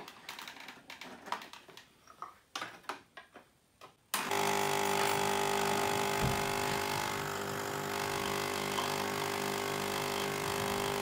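Knocks and clicks from the portafilter being locked into the group. About four seconds in, the pump of an Ariete Moka Aroma espresso machine starts suddenly and runs with a steady buzzing hum, pushing water through the ground coffee to extract an espresso. The machine makes a bit of noise.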